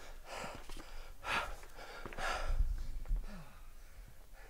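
A hiker breathing hard after a steep climb carrying a heavy pack: three or four deep, audible breaths about a second apart, fading toward the end.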